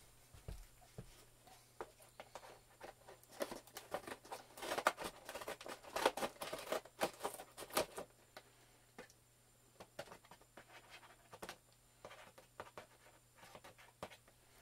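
Action-figure box being cut and pulled open with scissors: faint, irregular snips, scrapes and crinkles of cardboard and plastic packaging, busiest in the first half and sparser toward the end.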